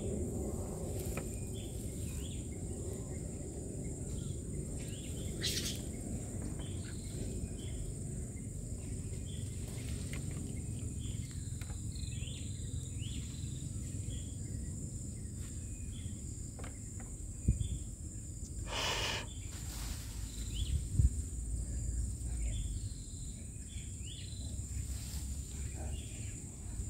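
Steady high insect drone with scattered short bird chirps over a low rumble. A brief rustle and a couple of sharp thumps come about two-thirds of the way through.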